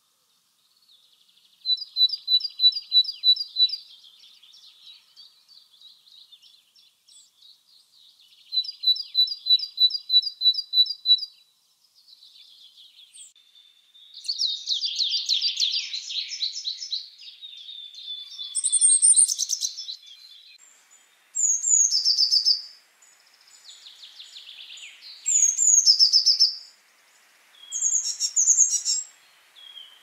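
Great tit singing a series of varied song phrases: first two runs of quick repeated high notes, then a denser, louder twittering stretch, and near the end several short phrases that slide down in pitch.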